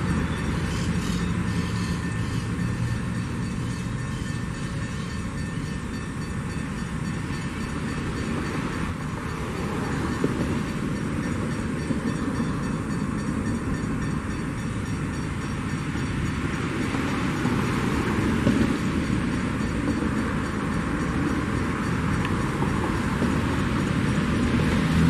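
Loaded mineral hopper wagons of a freight train rolling slowly over the rails, a steady rumble of wheels on track.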